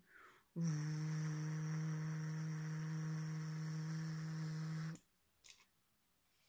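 A woman's voice imitating a hair dryer with a steady buzzing hum, held at one pitch for about four seconds and then cut off sharply.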